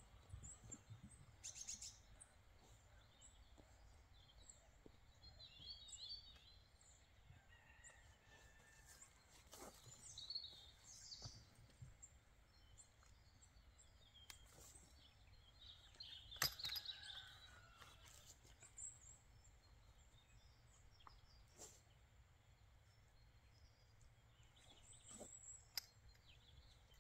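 Quiet outdoor ambience with scattered bird chirps and a few brief knocks, the loudest about sixteen seconds in.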